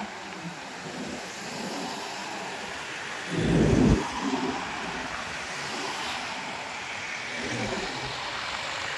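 Cars and SUVs in a convoy driving past, a steady road noise with a brief, louder low rumble about three seconds in.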